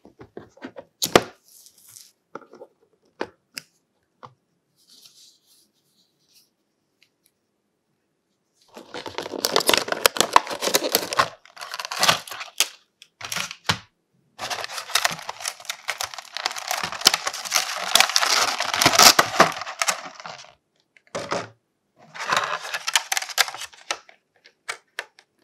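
Action figure packaging being handled: a few light taps and clicks as the cardboard box is opened, then long stretches of crackling and crinkling as the clear plastic blister trays are lifted out and handled.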